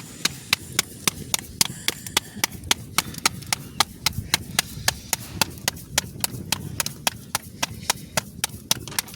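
Rapid, evenly spaced sharp taps, about four a second, over a steady low rumble.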